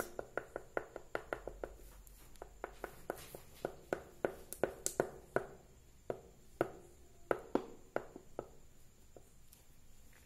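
A light green oil pastel tapping dots onto drawing paper: a run of short, irregular taps, about two or three a second, which thin out and stop near the end.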